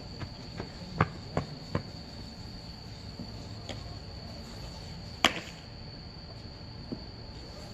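Crickets chirping in a steady high trill. Over it come three soft knocks about a second in and one sharp, loud crack a little over five seconds in, a baseball striking a bat or a glove.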